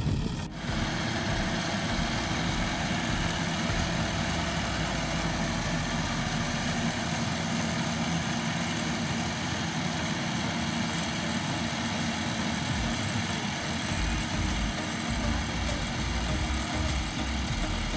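Engine of a rice harvesting machine running steadily.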